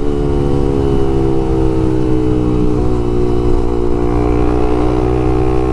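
Honda CBX 250 Twister's single-cylinder four-stroke engine running through a LeoVince aftermarket exhaust while riding, its note easing down slightly at first and then holding steady.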